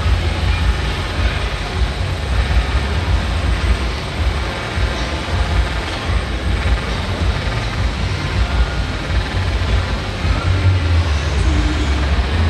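Model helicopter's small gas turbine engine, rated at about 6 kW, running steadily just after its push-button start: a deep rumble under an even rushing noise.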